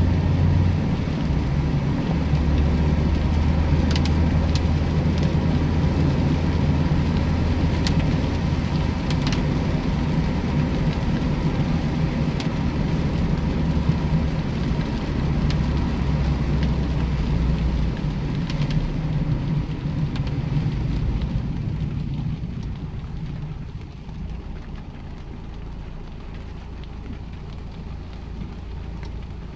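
Cabin sound of a Mazda MX-5 Miata 1.8 driving on wet city streets: the four-cylinder engine's low drone under a hiss of tyres on wet road and rain on the car, with a few sharp clicks. About two-thirds of the way through, the engine drone falls away and the sound settles to a quieter hiss as the car slows to a stop.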